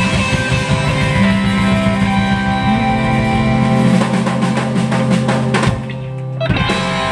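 Live rock band playing loud: electric guitar, electric bass and drum kit together. About six seconds in the band drops out briefly, then comes back in.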